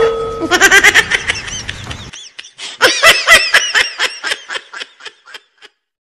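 A person laughing in rapid repeated 'ha-ha' bursts. The laughter breaks off for a moment after about two seconds, starts again and fades away well before the end.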